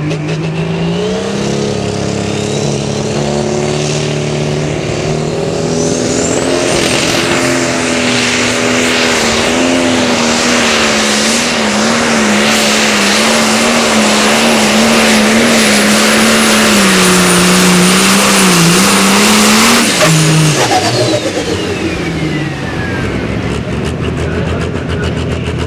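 Case IH diesel pulling tractor's turbocharged engine at full throttle through a pull, with a high turbo whistle that climbs over the first few seconds and holds. About twenty seconds in, the throttle is cut at the end of the pull: the engine drops and the turbo whine falls away as it spools down.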